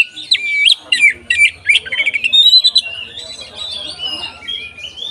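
Oriental magpie-robin (kacer) singing a loud, fast run of sharp whistled notes that sweep steeply up and down. About three seconds in, the song eases into softer, more continuous warbling.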